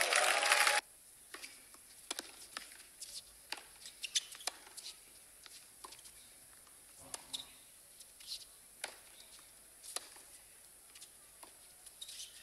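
Crowd cheering and applause that cuts off abruptly in the first second. After it come scattered sharp tennis ball strikes and bounces with short rubber-sole squeaks on a hard court, at irregular spacing.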